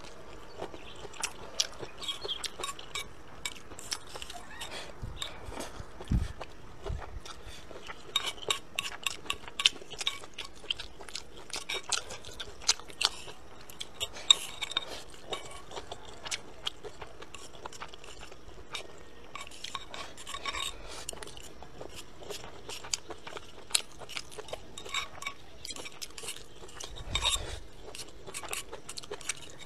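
Chopsticks clicking and scraping against a bowl as rice is shovelled into the mouth, with chewing between, many short clicks throughout.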